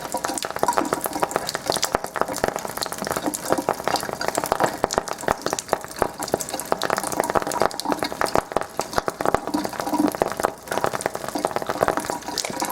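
Rapid, irregular crackling pops as a lighter flame is held in the stream of water running from a Kangen water ionizer, over the sound of the flowing water. The demonstrator credits the popping to dissolved hydrogen in the ionized water.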